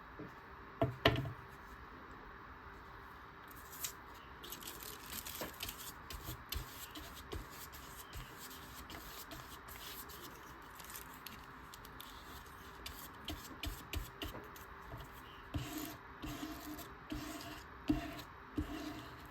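Paper collage pieces being handled and rubbed down onto a journal page with matte medium: faint, irregular rustling, rubbing and scraping, with two sharp taps about a second in.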